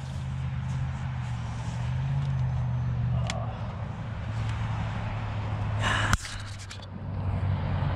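A steady low engine hum, with a single sharp click a little after three seconds in and a short rustle and knock around six seconds.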